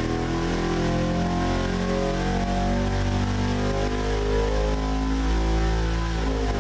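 A 408-cubic-inch stroker V8 with a four-barrel carburettor on a dual-plane intake manifold, running loudly and continuously on an engine dynamometer.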